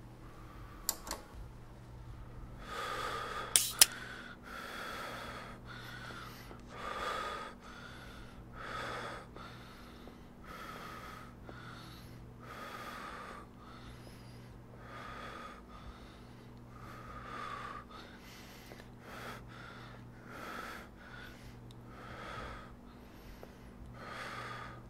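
Breathing, one breath swell roughly every two seconds, over a steady low hum, with a few sharp clicks in the first few seconds.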